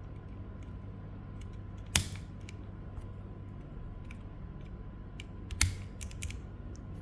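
Gateron Pro Yellow linear mechanical keyboard switches being pressed and released: scattered light plastic clicks, with two louder clacks about 2 seconds and 5.5 seconds in.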